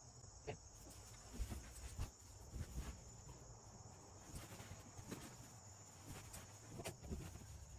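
Faint steady high-pitched chirring of crickets, with scattered soft knocks and handling sounds close by.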